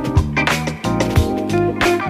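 Backing music: guitar over bass and repeated drum hits.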